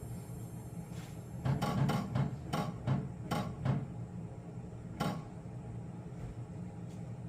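Handling and fitting of a car headlight unit: a quick run of knocks and clatter, then one more knock a second or so later.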